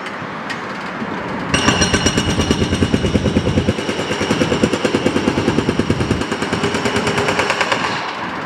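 Hydraulic breaker on a Takeuchi TB2150R compact excavator hammering concrete in a fast, even train of blows. The hammering starts about a second and a half in and stops near the end, over the excavator's diesel engine running.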